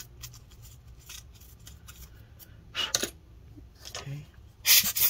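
Quick back-and-forth rubbing strokes, about five or six a second, cleaning dust off a MacBook Pro speaker unit; they start near the end, after a brief rustle of handling about three seconds in.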